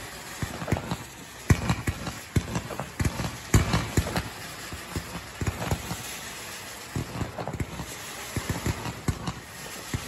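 Fireworks bursting overhead in rapid, irregular crackling pops and bangs. The two loudest bangs come about a second and a half and three and a half seconds in.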